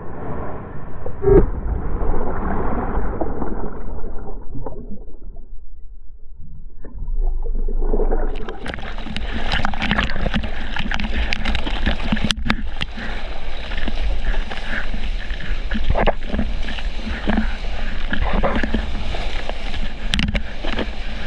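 Surf water rushing and splashing right against a waterproof action camera. It sounds muffled for the first few seconds, then from about eight seconds in turns to loud, continuous churning whitewater with sharp slaps and splashes.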